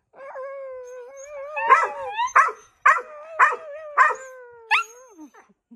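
Dogs howling: one long, slightly wavering howl held for about five seconds, with about six short yipping cries breaking in over it, the last one rising in pitch near the end.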